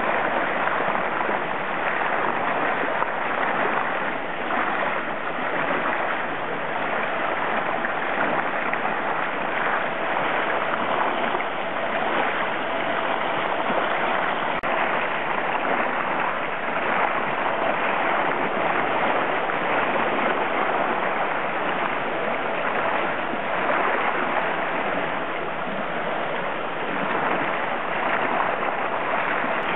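Water in an aeration tank churning and splashing steadily, stirred up by a submersible aerator fed with air from a blower. A faint steady hum runs under the rushing water.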